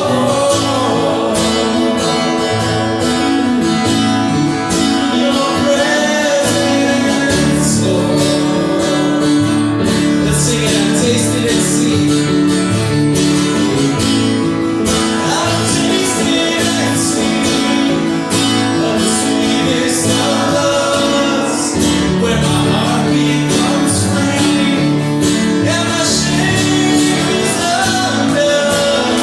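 Music: a song with singing over strummed acoustic guitar, with a steady beat.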